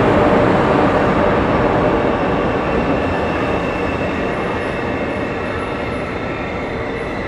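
Train running on rails: a loud, dense rumble that slowly fades, with faint high wheel-squeal tones coming in during the second half.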